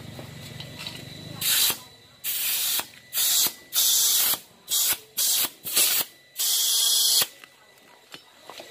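Compressed air hissing from an air chuck on the valve stem in about eight short bursts, inflating a freshly remounted tubeless motorcycle tyre.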